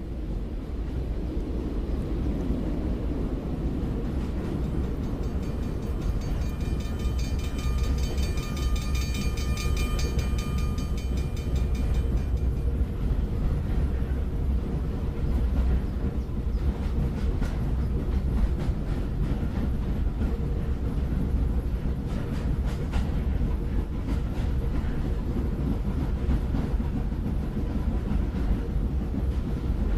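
A train running past with a steady rumble. Its whistle sounds once for about six seconds a few seconds in, and a run of wheel clicks follows in the second half.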